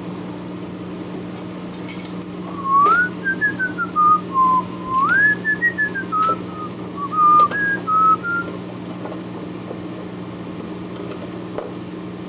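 A person whistling a short tune of rising and falling notes for about six seconds, over a steady low hum.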